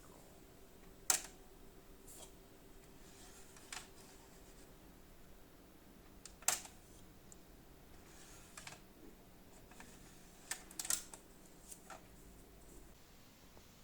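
A few scattered clicks of a laptop keyboard being typed on, irregular and sparse, over a faint steady hum that stops near the end.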